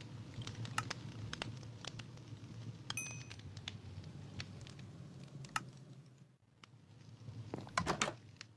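Scattered light clicks and taps over a steady low hum, with a short high beep about three seconds in and a quick cluster of clicks near the end.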